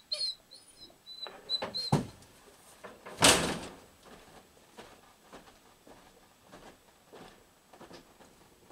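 The door of a camp trailer opens with a sharp thunk about two seconds in and shuts with a louder, longer bang about a second later. Light footsteps then follow along the wooden porch boards.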